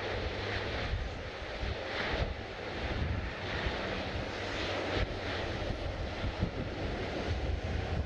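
Airliner jet engines running steadily, with wind buffeting the microphone.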